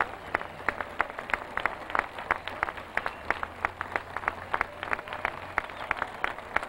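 Audience applauding, with several sharp individual claps a second standing out clearly above the crowd's clapping.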